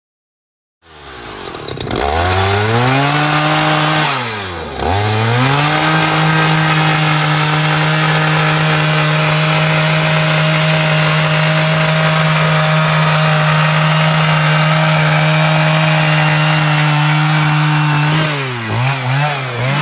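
Gas-powered ice auger drilling through lake ice: the engine comes in about a second in and revs up, sags briefly and picks up again around four seconds in, then holds a steady high rev while the bit cuts. Near the end it throttles down with a few quick blips of the throttle.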